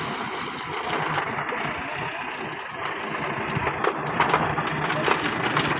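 Massey Ferguson tractor's diesel engine running as it works a front loader, getting louder in the second half. In the second half there is also a run of sharp knocks and rattles, as of stone pieces shifting in the loader bucket.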